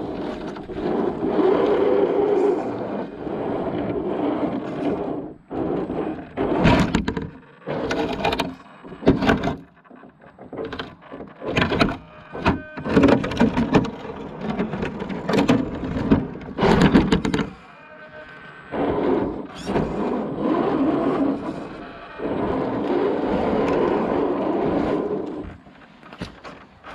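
1/10-scale Axial SCX10 II RC crawler driving over rough ground in stop-start spurts, with many knocks, thuds and scrapes.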